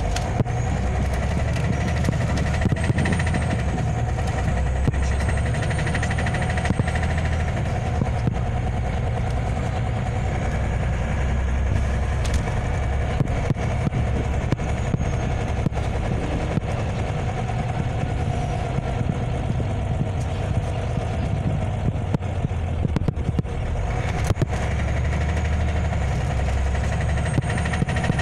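Scania OmniLink CL94UB city bus heard from inside the passenger cabin while driving: a steady low engine rumble with road noise, the engine note shifting as the bus speeds up and slows.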